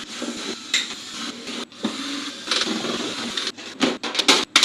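Steady rushing noise, then a quick run of sharp clacks and knocks in the last second or so, like things being handled and moved.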